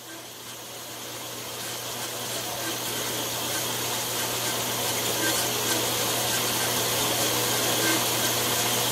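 Horizontal metal-cutting band saw running, its blade cutting through 6061 aluminum bar stock: a steady motor hum under a hissing cut, with a faint tick about once a second. The sound fades in over the first few seconds.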